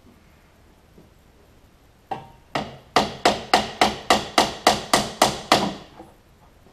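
Hammer blows on the old car's front bumper mounting as it is knocked loose for removal. Two single blows come first, then a quick run of about a dozen strikes at three or four a second, which stops near the end.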